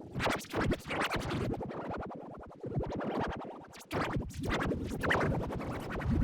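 Effects-distorted cartoon music, choppy and stuttering with a record-scratch-like texture; it dips briefly a little after halfway, then comes back denser.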